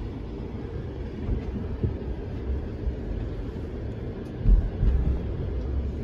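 Jeep Gladiator's engine running low and steady as the truck crawls over rock, heard from inside the cab. A couple of louder low thumps come about four and a half seconds in.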